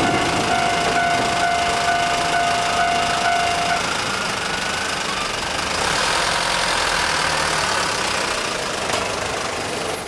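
Level-crossing warning bell ringing with a steady tone that stops about four seconds in, leaving the steady noise of road vehicle engines at the crossing.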